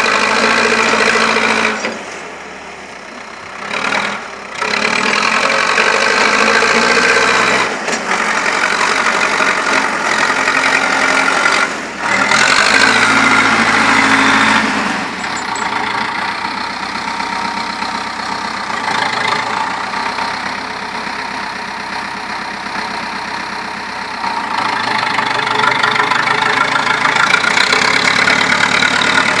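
Zetor 7211 tractor's diesel engine running under load as it pushes snow with a rear-mounted bucket. The engine note changes abruptly several times.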